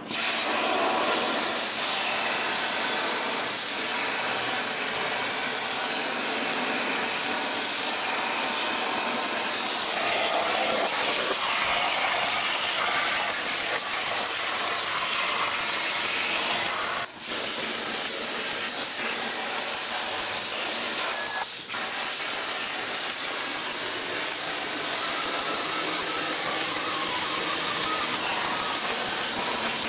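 Torchmate CNC plasma torch cutting quarter-inch steel plate at 45 amps: a loud, steady hiss. It cuts out for a moment a little past halfway and dips again briefly a few seconds later.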